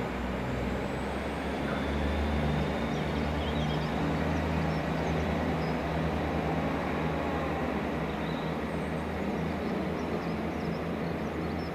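Freight train of empty oil tank wagons rolling away on a curve: a steady low rumble of wheels on rail, with the low drone of the diesel locomotive hauling it.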